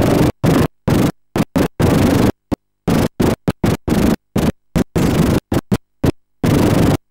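Loud harsh noise broken into short, irregular bursts by sudden dropouts to total silence several times a second: a damaged old camcorder sound track.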